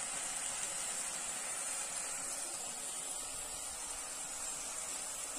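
Greens and garlic sizzling in an iron wok over a wood fire: a steady hiss.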